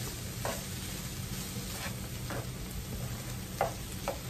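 Ground turkey with tomato and onion sizzling in a nonstick skillet over a gas flame while a spatula stirs it, with a few short scrapes and taps of the spatula against the pan, the loudest about three and a half seconds in. A low steady hum runs underneath.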